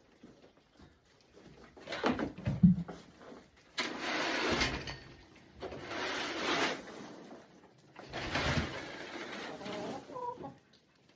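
Three scraping strokes of cleaning in an animal pen, each about a second long and about two seconds apart, with a brief squeak near the end.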